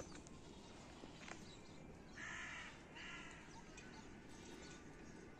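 A crow cawing twice in quick succession, about two seconds in, over faint outdoor background.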